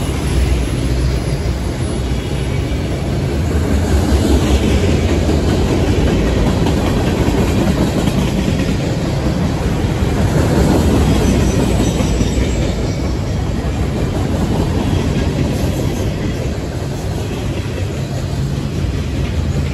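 Freight cars of a CSX manifest train rolling past, with steady steel-wheel-on-rail noise.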